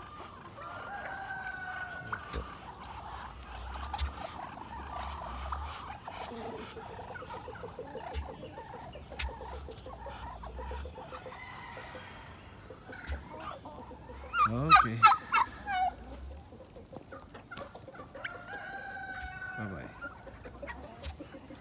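Backyard chickens clucking, with a rooster crowing several times; the loudest crow comes about two thirds of the way through.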